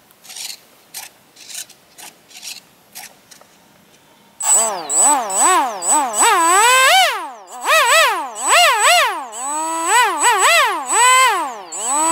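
A few short scraping sounds, then about four seconds in a 2205 2300 kV brushless motor with a 5045 propeller starts up. Its whine sweeps up and down over and over as the throttle is worked, with a steady high whistle above it, and it rises again near the end.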